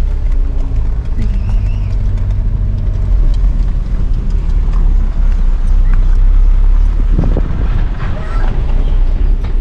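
Vehicle engine running and its low rumble while driving slowly over a dirt road, heard from inside the cab.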